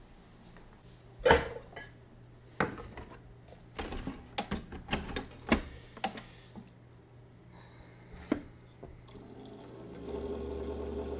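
A countertop coffee maker being handled: a string of clicks and knocks, the sharpest about a second and a half in, then the machine starts up with a steady hum about nine seconds in.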